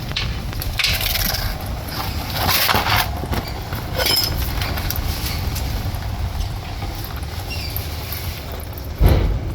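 Spanner and metal parts clinking and scraping while the power-steering return line fitting is worked loose, a few short bursts and one brief ringing clink, over a steady low rumble; a single knock near the end.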